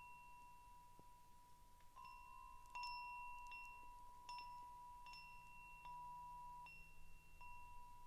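Wind chime played gently by hand: soft ringing notes struck about once a second, each ringing on into the next.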